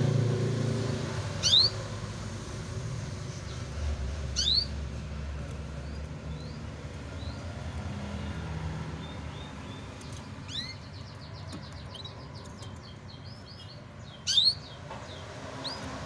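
Domestic canaries calling. Three loud, sharp sweeping chirps come about a second and a half in, at four and a half seconds and near the end, with softer scattered notes and a quick run of twittering notes between them.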